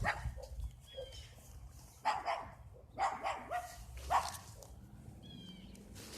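A big dog barking in short bouts, a few barks at a time, with pauses of about a second between the bouts.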